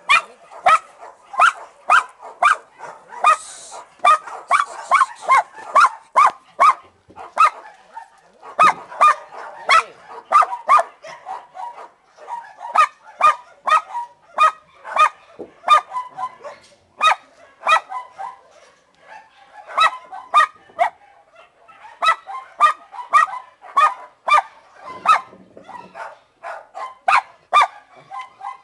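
A dog barking over and over, about two barks a second, in long runs broken by a few short pauses.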